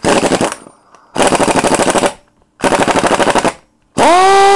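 Central Pneumatic Earthquake 1/2-inch air impact wrench triggered four times in short bursts of about a second, running free with no load in a rapid clattering rattle. In the last burst a whine rises and then holds as the air motor spins up to speed.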